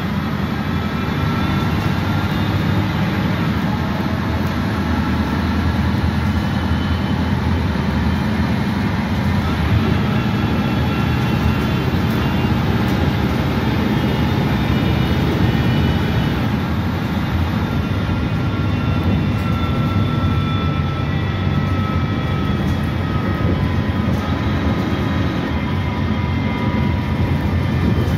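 A 1989 Gillig Phantom transit bus under way, heard from inside the rear of the cabin. Its Detroit Diesel Series 50 inline-four diesel and Voith D863.2 automatic transmission give a steady, loud drone, with faint whining tones above it that drift slightly in pitch.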